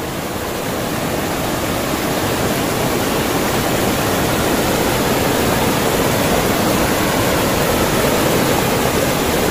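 River water rushing over shallow rapids: a loud, steady rush of fast current.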